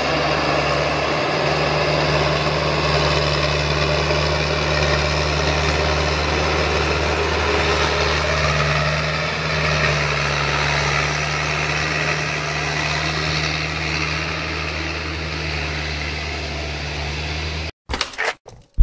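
Diesel engine of a Dongfeng Trường Giang truck loaded with acacia logs, running steadily at low revs as the truck crawls over a muddy dirt track. Near the end the engine sound cuts off abruptly, replaced by short, choppy electronic glitch sounds.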